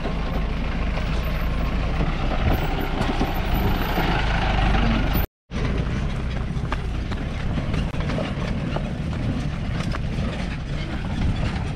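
4x4 vehicle engine running with a low rumble as it drives a rough off-road trail, with scattered knocks and rattles. The sound drops out for a split second just past halfway.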